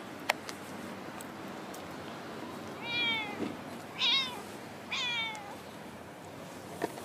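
A stray cat meowing three times, about a second apart, each call bending in pitch. A sharp click comes just after the start.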